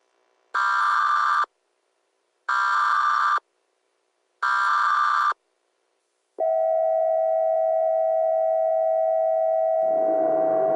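Emergency Alert System tones: three short SAME header data bursts, each just under a second and about a second apart. About six seconds in comes the long, steady EAS attention tone. Near the end a rough static-like noise joins underneath the tone.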